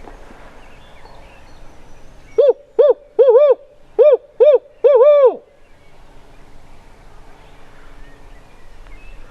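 A turkey hunter's imitated barred-owl hooting, a locator call meant to make a gobbler answer: about seven loud, pitched hoots over three seconds, each rising and falling, the last drawn out and dropping away at its end.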